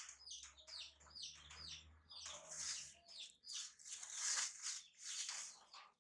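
A thin plastic bag crinkling in three short bursts as a baby macaque grabs and pulls at it, after a run of quick high chirps in the first couple of seconds.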